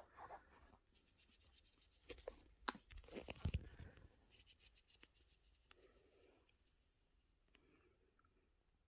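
Soft rustling and crackling with scattered light clicks and a dull bump about three and a half seconds in, fading to near silence over the last two seconds.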